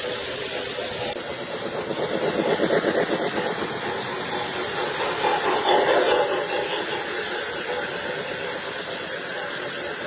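O gauge model train running on the track, a steady rolling rumble of wheels and motor. It swells as the train passes close, about two seconds in and again around six seconds.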